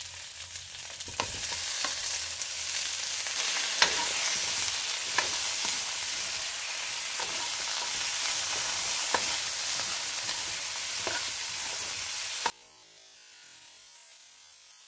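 Cherry tomatoes, garlic, onion and ginger sizzling in hot oil in a metal wok, stirred with a spatula that scrapes and taps the pan every second or so. The sizzle cuts off suddenly a couple of seconds before the end, leaving only a faint sound.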